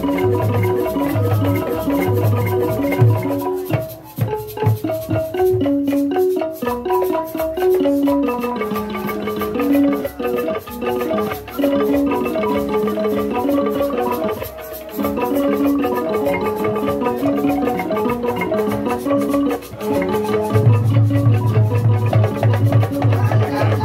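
Live traditional African music: a repeating melody of short struck notes, with drums beating strongly at the start, dropping out after about three seconds and coming back in near the end.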